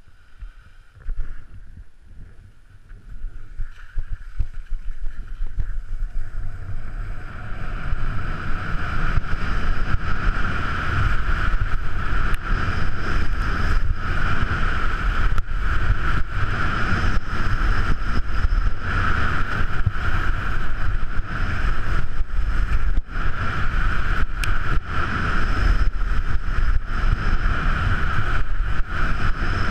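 Wind buffeting the skier's own camera microphone while the skis hiss and scrape over groomed snow. It builds over the first several seconds as speed picks up, then stays steady.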